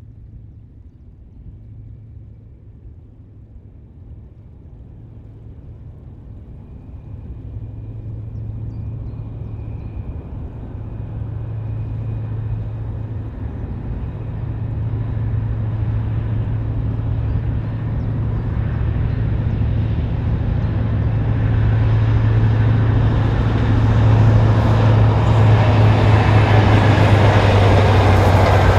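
A CrossCountry High Speed Train's Class 43 diesel power car approaching, its engine's steady low drone growing louder throughout. Wheel and rail noise builds over it towards the end as the train draws close.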